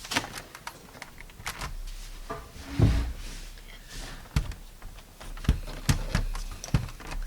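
Irregular knocks, clicks and clatter of tools and objects being picked up and set down on a desk as it is cleared, with a heavier thump about three seconds in and several sharp knocks near the end.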